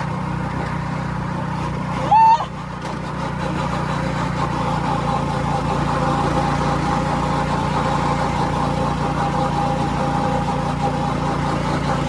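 Go-kart running along the track: a steady motor drone with a whine that grows louder from about four seconds in. A brief loud cry about two seconds in.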